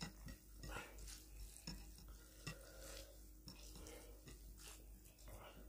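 Faint, irregular small clicks and soft squelches of bare hands mixing rice and mutton curry on plates and lifting it to the mouth.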